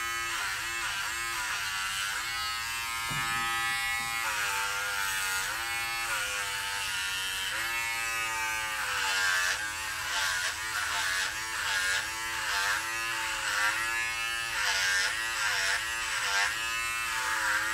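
Electric hair clippers running as they are pushed through long hair, the motor's hum dipping in pitch again and again under the load of each chunk and recovering between strokes.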